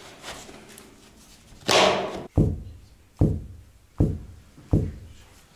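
Laminate floor clunking as it is stepped on: a longer noise about a second and a half in, then four dull knocks about three-quarters of a second apart. The knocking comes from a broken-off corner of the concrete floor slab rocking under the laminate, not from the laminate itself.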